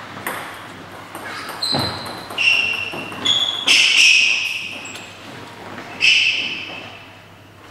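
Several short, high squeaks of sports shoes on a wooden sports-hall floor as table tennis players shift their feet between points, with a single knock about two seconds in.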